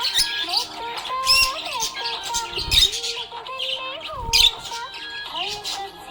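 Budgerigars chirping and twittering in quick, busy runs over background music, which carries a held melody that slides between notes.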